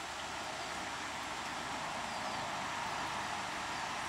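Steady running noise of an SA-138 diesel railbus standing at idle.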